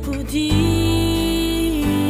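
Slow Korean indie ballad playing, a female voice holding one long note over guitar and band accompaniment.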